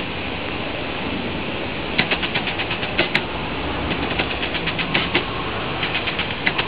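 A steady mechanical whir with short bursts of rapid clicking, several clicks in quick succession, recurring every second or so.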